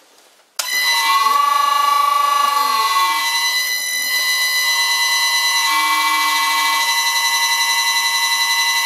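Lathe motor driven by an old Allen-Bradley variable frequency drive starting up about half a second in. A loud high-pitched whine of several steady tones follows, with some pitches gliding as the motor ramps up to speed, then it holds with a slight regular pulsing. The whine is the drive's electrical switching noise, called horrible sounding, and the unbalanced motor vibrates.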